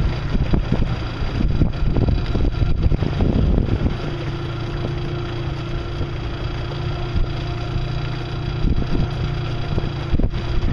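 Outboard motor of a coaching launch running steadily. A steady hum settles in about four seconds in.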